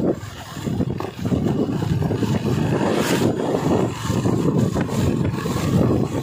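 Travelling noise from a vehicle moving along a road: an irregular low rumble of wind buffeting the microphone over engine and tyre noise, with a brief hiss about halfway through.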